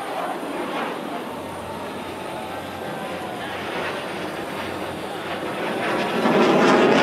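Jet engine noise of a pair of F/A-18 Hornet fighters flying past, swelling louder near the end.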